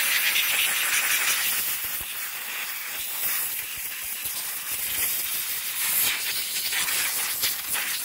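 Compressed-air blow gun blasting dirt off a motorcycle frame: a continuous hiss of escaping air that eases and swells in strength.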